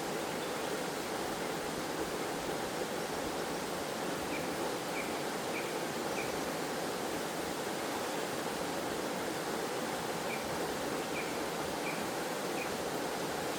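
Waterfall in a forest stream, water rushing and splashing in an even, unchanging hiss. Two runs of four faint, short high chirps, evenly spaced, rise above the water in the middle and near the end.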